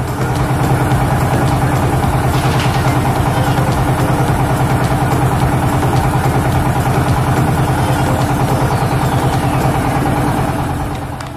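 A boat's engine running steadily at an even speed, fading out at the very end.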